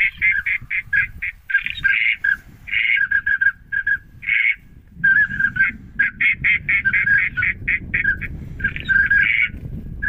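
A large flock of waterfowl calling in flight: a rapid, continuous stream of short, overlapping calls, with a low rumble underneath that strengthens about halfway through.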